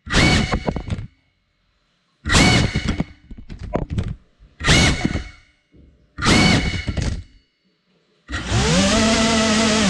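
Tiny whoop FPV drone's motors and propellers whirring in short throttle bursts, each starting sharply and fading, with silent gaps between. About eight seconds in they spin up into a steady whine that rises in pitch and then holds.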